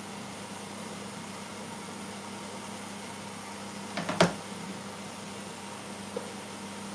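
Steady hum and rush of a kitchen range hood extractor fan. About four seconds in, a single sharp knock as a phone is set down on the stone countertop.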